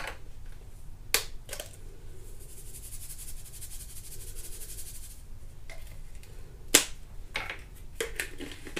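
Pink Himalayan salt trickling from a small container into a bowl of seasoned ground beef, a soft hiss lasting a few seconds. It comes between a few sharp clicks of the plastic container being handled; the loudest is about two-thirds of the way through.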